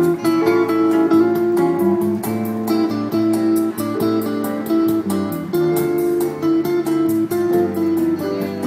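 Guitar music: a plucked melody over steady strummed chords, with a regular beat.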